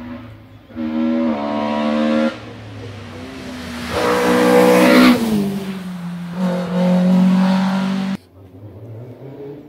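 Hill-climb race car engine revving hard as it comes up the course. The pitch climbs, drops at a gear change, and is loudest as the car passes close. The pitch then falls as it pulls away, and the sound cuts off suddenly near the end.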